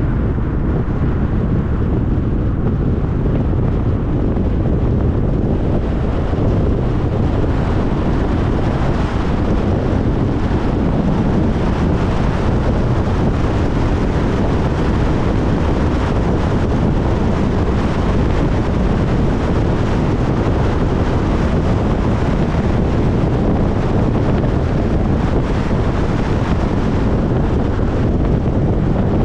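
Steady road noise of a car driving at speed: a low tyre and wind rumble with no pitch changes or breaks.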